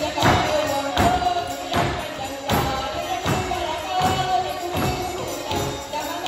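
Live Portuguese folk band music playing a vira dance tune. Held melody notes run over a regular percussive beat, with a strong stroke about every three-quarters of a second.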